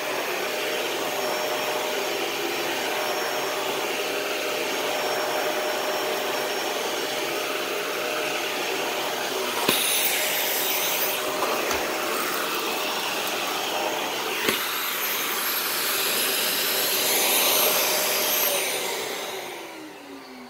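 Dyson DC41 Animal Complete upright vacuum cleaner running with a steady motor hum, with a couple of sharp clicks about ten and fourteen and a half seconds in. Near the end it is switched off and the motor winds down with a falling whine.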